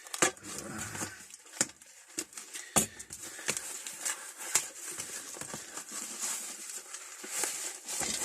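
Rustling and crinkling of wrapping as a packaged tool is unwrapped and handled by hand, with scattered sharp clicks and knocks.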